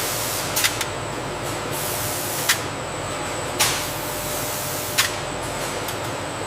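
A steady, loud hissing rush with a faint high whine in it, broken by four sharp knocks.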